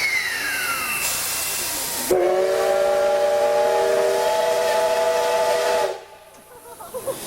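Steam locomotive C62 2 sounding its chime whistle once, about two seconds in: a long, loud chord of several notes held nearly four seconds, then cut off sharply. A steady hiss of steam runs before it.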